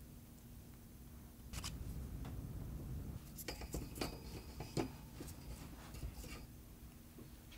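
A plastic piping bag rustles, then a run of light clicks and clinks follows as small baked croissants are set down on a stainless wire cooling rack in a metal tray. The rack gives a faint metallic ring.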